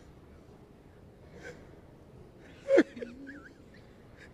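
A man choked up with emotion, a single short sob-like gasp about two and a half seconds in that falls sharply in pitch and trails into a brief low sound. Otherwise quiet room tone.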